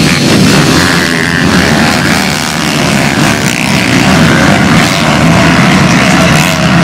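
A pack of pit bikes racing on a dirt track: many small motorcycle engines running hard together, their buzzing pitches overlapping steadily.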